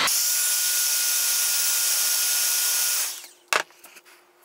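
Electric heat gun blowing steadily while shrinking heat-shrink tubing over a chewed wire, a steady hiss with a faint whine. It is switched off about three seconds in and winds down quickly, followed by a single click.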